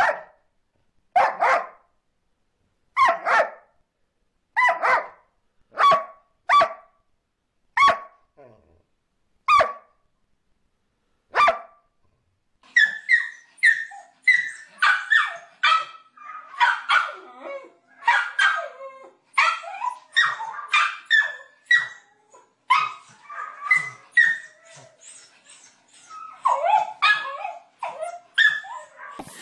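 Dogs barking. First come single barks spaced one to two seconds apart. From about twelve seconds in, a small dog barks rapidly at a higher pitch, two or three barks a second.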